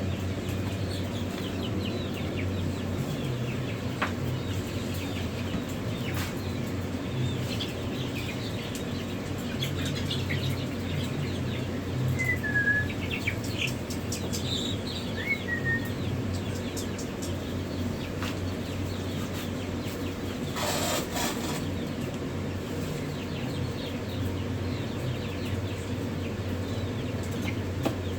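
Many young chicks peeping, with a steady low hum underneath. Scattered clicks are heard, and there is a brief burst of rustling or flapping about 21 seconds in.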